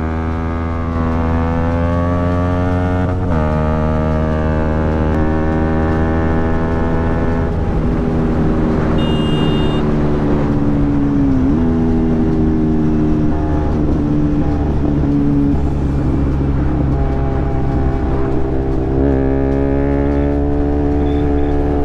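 Motorcycle engine running under way, a steady pitched drone whose pitch dips sharply and climbs back a few times, about three, eleven and nineteen seconds in.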